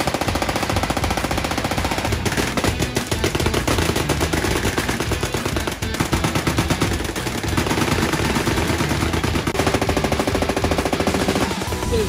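Several machine guns firing in long, overlapping full-auto bursts on a firing line, a dense rapid rattle of shots with a brief break about halfway through.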